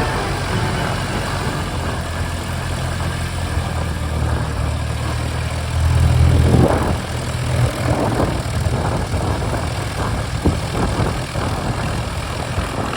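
Aircraft engine running steadily, a little louder from about six to eight seconds in.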